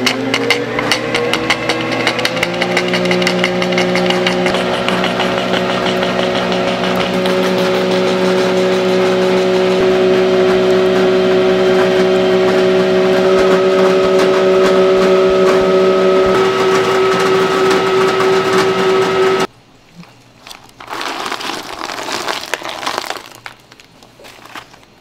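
Ice cream batch freezer running as it extrudes a finished batch: a steady motor hum whose pitch rises over the first couple of seconds, then holds until the machine cuts off suddenly about two-thirds of the way through. Quieter, irregular handling sounds follow.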